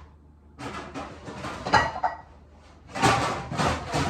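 A pan being handled at a kitchen cabinet: rummaging and clattering, with a sharp knock about two seconds in and louder rattling from about three seconds in.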